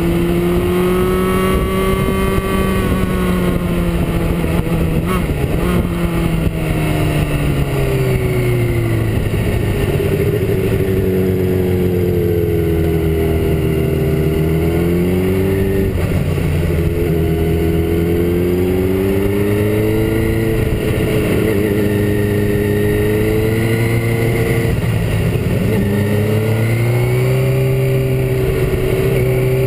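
Motorcycle engine running on the move, its pitch rising and falling several times with the throttle and gear changes, over steady wind and road noise.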